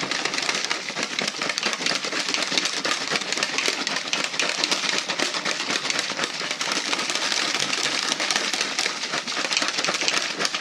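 A shaker flask with a mixing insert, holding water and meal-replacement shake powder, being shaken hard side to side and up and down. It makes a fast, continuous rattling slosh.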